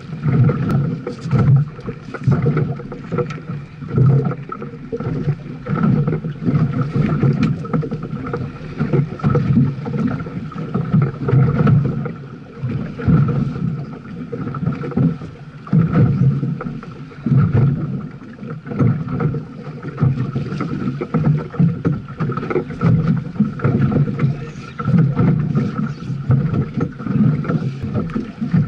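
Wind buffeting the action camera's microphone aboard a small boat on choppy sea, in quick uneven gusts, with water slapping against the hull and a steady high hum underneath.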